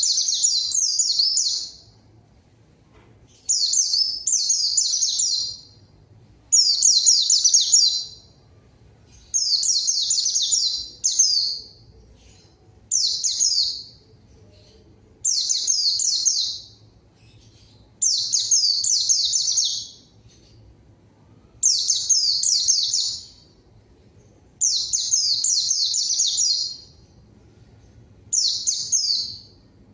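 White-eye (pleci) singing in full voice: high, fast twittering phrases of rapid downward-sliding notes, each one to two seconds long and repeated about every three seconds with short pauses. This is the vigorous 'gacor' song used as a lure to get quiet pet white-eyes singing.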